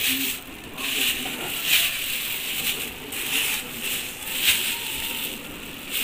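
Plastic bag of meat bones rustling as it is handled and set down on a kitchen scale, in uneven surges.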